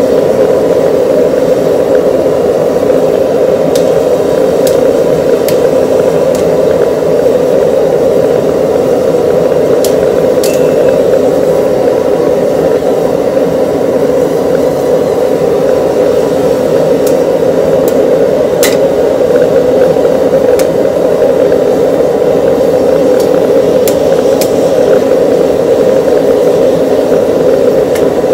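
A forge running with a steady, loud rushing roar, with a dozen or so faint light metal taps scattered through it.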